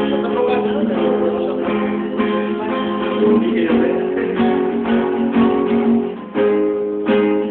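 Acoustic guitar strumming chords, with a brief break about six seconds in before the strumming picks up again.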